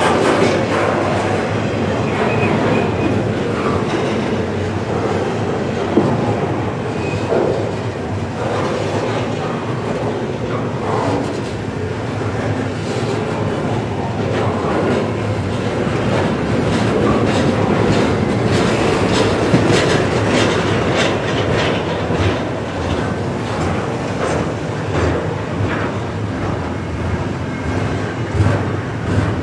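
Double-stack intermodal freight cars rolling slowly past close by: a steady rumble of steel wheels on rail, with repeated clicks as the wheels pass over rail joints.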